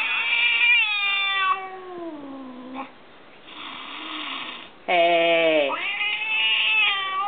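Cat yowling in an aggressive standoff between two cats: a long drawn-out yowl sliding down in pitch, a short hiss, then a loud abrupt yowl and another drawn-out one near the end.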